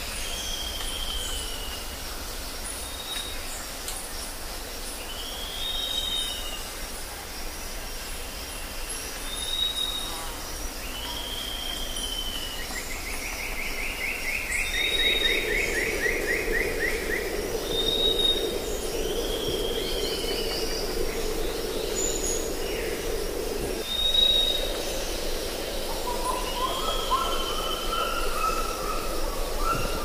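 Forest birds calling: short falling whistles and high piping notes repeated every few seconds, with a longer buzzy rasping call about halfway through. A steady low drone comes in about halfway and continues.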